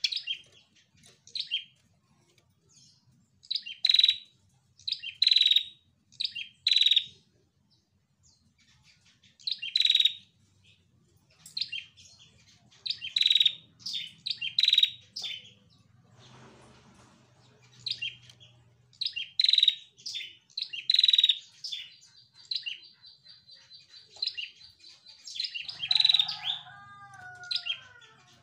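Female prenjak (a rufous-headed tailorbird) calling over and over: clusters of short, sharp, high chirps with short gaps between them. A thin steady trill comes a little past the middle, and a few lower falling notes come near the end.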